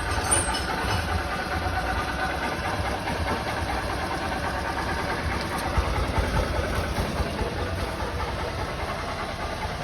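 Honda Titan 150's single-cylinder engine idling steadily, run to test whether the worn cam chain tensioner that caused its rod-knock-like noise has been cured.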